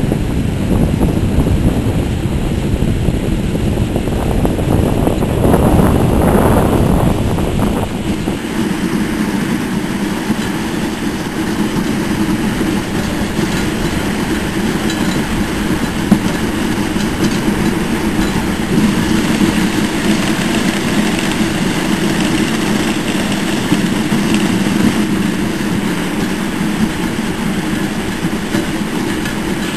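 Dog sled gliding over packed snow: the runners give a continuous rumbling scrape. It is louder and deeper for the first eight seconds or so, then settles into a steady, even rumble.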